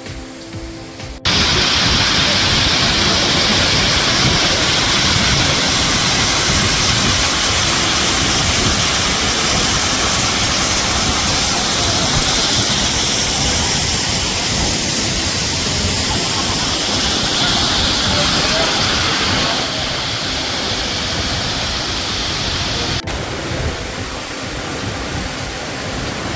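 Roar of a tall waterfall heard close up from its base: a loud, steady rush of falling water. It starts abruptly about a second in and changes a little in tone with a sudden shift near the end.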